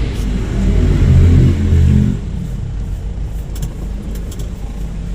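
Vehicle engine running louder for about the first two seconds, then dropping back to steadier, quieter running.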